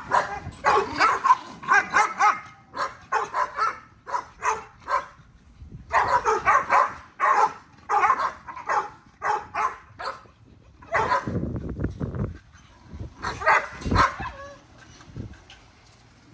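Dogs barking and yipping in quick runs of short, high barks, several a second, broken by brief pauses and dying away near the end.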